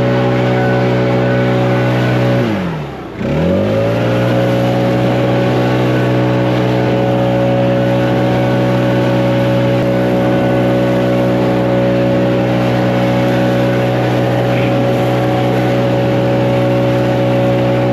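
Gas leaf blower running at full throttle with a steady engine note; about two and a half seconds in the throttle is let off briefly, the pitch dropping and then climbing back up to speed.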